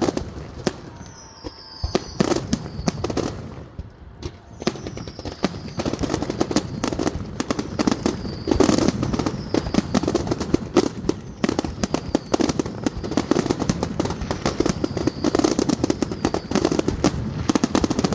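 Fireworks display: rapid crackling and bangs from bursting shells, with repeated high whistles that fall in pitch. The crackle thickens and grows louder about five seconds in.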